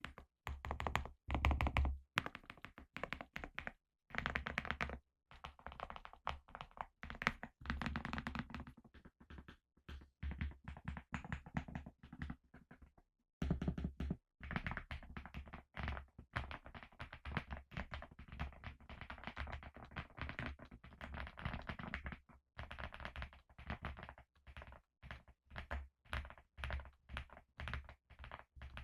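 Typing on a TickType DP104 mechanical keyboard with Rye linear switches: fast runs of keystrokes with a deep, thocky clack, broken by a few short pauses.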